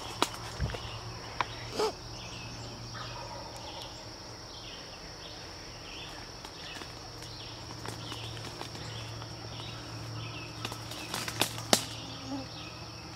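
A steady chorus of insects, with a few sharp crackles of twigs and brush underfoot near the start and again in a quick cluster near the end.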